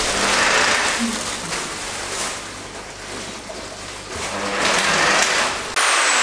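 Electric drill running against a metal wall bracket, boring into the wall in two pushes with an easing between them. Near the end it gives way abruptly to a steady hiss.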